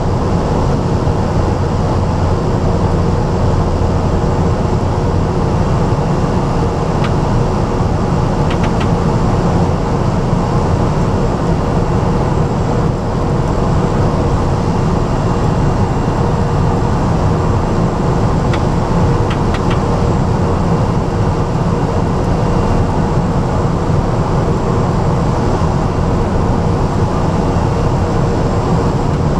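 Steady cabin drone of a light aircraft in flight: engine and airflow noise with a constant hum, with a few faint clicks about seven and nineteen seconds in.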